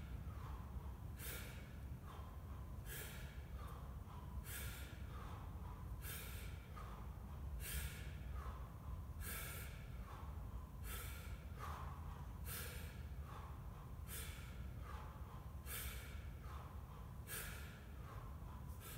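A man's sharp, forceful breaths, one short hiss about every second and a half in a steady rhythm, paced to each rep of a 24 kg kettlebell. A steady low hum runs underneath.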